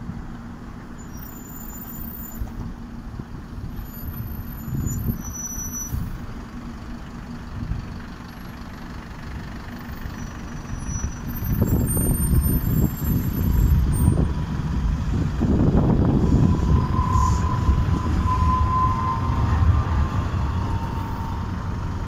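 Long-distance passenger train pulling out, its coaches rolling along the rails with a low rumble that grows louder about halfway through. A faint steady whine joins in later.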